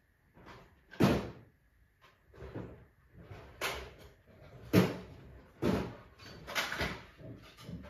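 Cupboard doors and drawers being opened and shut and tools rummaged through: a string of about six knocks and clatters, the loudest about five seconds in.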